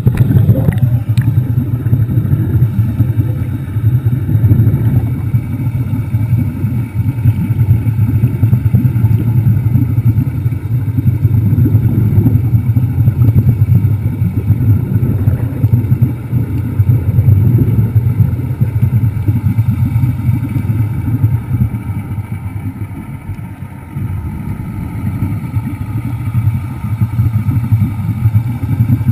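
Underwater scooter's motor running steadily, heard as a continuous low drone that eases briefly about three-quarters of the way through.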